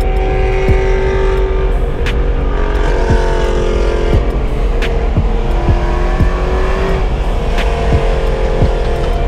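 BMW E92 M3's S65 V8 with an aftermarket titanium exhaust, running at highway speed and heard from inside the cabin. Its steady drone steps down and back up in pitch a few times under a constant low road rumble, with a few sharp clicks.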